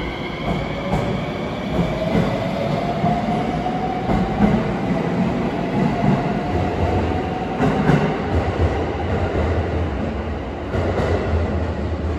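521 series electric multiple unit pulling out and accelerating. Its VVVF inverter motors give a whine that rises slowly in pitch, over rumbling and clattering wheels on the rails as the cars pass.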